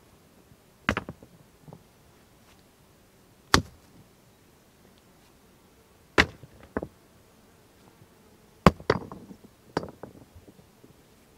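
Stones knocking against one another as rocks are picked up and set onto a dry-stone wall: a sharp clack every couple of seconds, some coming in quick pairs.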